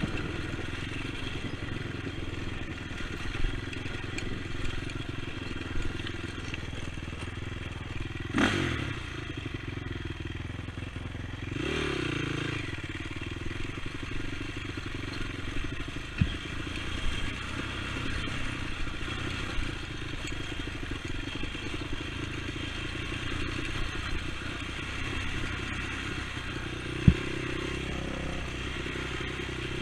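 Honda TRX450 ATV's single-cylinder four-stroke engine running steadily while riding, with clatter from the machine. The engine briefly revs up and down twice in the first half, and two sharp knocks come later.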